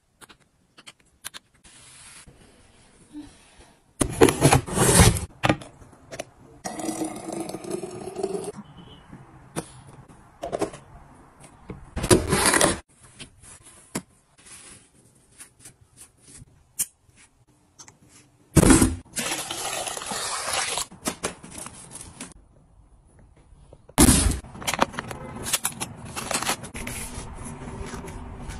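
A string of close handling sounds: rustling, scraping and clicks as fabric, gloves and plastic packaging are picked up and handled, in separate bursts, the loudest about four, twelve, nineteen and twenty-four seconds in.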